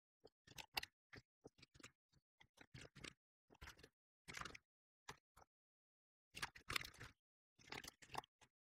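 Typing on a computer keyboard: faint, irregular runs of key clicks with short pauses between them.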